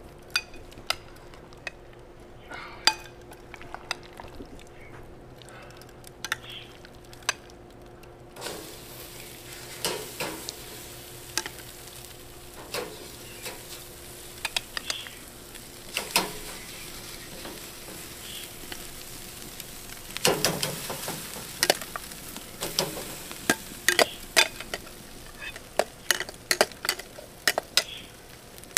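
Metal tongs clicking and scraping against a bowl and the grill grate as raw meat is laid over a wood fire. From about eight seconds in, a steady sizzle of the meat on the hot grate runs under the clicks, growing louder around twenty seconds in.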